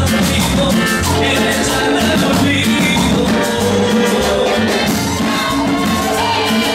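Loud Latin dance music played through a DJ sound system, with a steady percussion beat.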